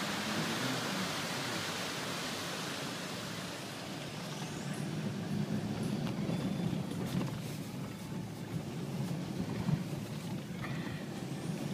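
Car driving slowly on an unpaved gravel road, heard from inside: a steady low rumble of engine and tyres, with scattered small clicks and knocks from stones. A rushing hiss fades out over the first few seconds.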